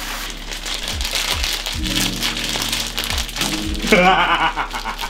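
Background music with deep, repeated bass notes, and a voice heard briefly about four seconds in.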